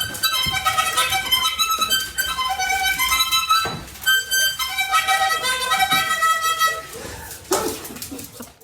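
Music: a quick tune of short, clear notes on a reedy wind instrument, which stops near the end.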